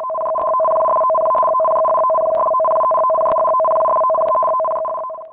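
Loud electronic alarm tone for a tsunami warning: two steady pitches sounding together, cutting off suddenly near the end.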